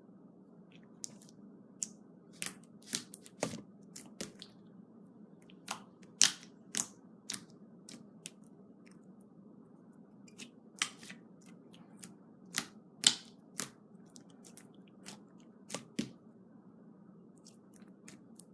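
Slime being played with by hand, giving irregular sharp clicks and pops, a few of them loud, over a faint steady hum.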